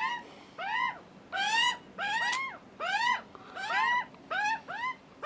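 Juvenile Australian magpies giving their begging calls, a run of short rising-then-falling squawks, roughly two a second: the hungry chicks pleading for food.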